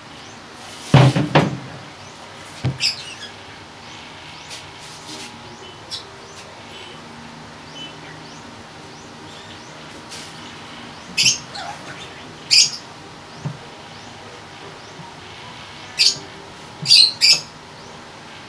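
A plastic chair clunks down onto a wooden table about a second in, followed by a couple of lighter knocks. Later come several short swishes and rubs of stretch fabric as a chair cover is pulled over the plastic chair, clustered in two pairs near the middle and the end.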